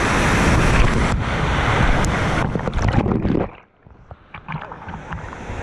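Fast river water rushing and splashing right at an action camera carried through whitewater in a narrow canyon. About three and a half seconds in, the rush drops away sharply to a quiet stretch of small splashes and drips, then builds again near the end.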